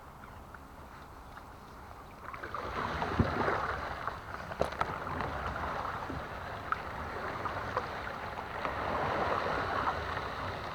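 Kayak paddle strokes splashing in the water, starting about two seconds in, with a couple of sharp knocks.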